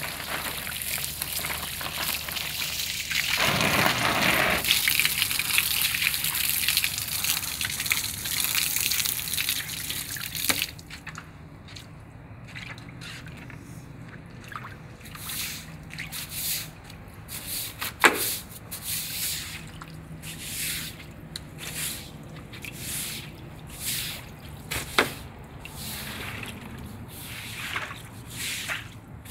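Water jet from a garden hose spray nozzle hissing steadily against a stucco wall and window sill, cutting off about ten seconds in. After that, a broom swishes over wet floor tiles in repeated strokes about once a second, with two sharp clicks.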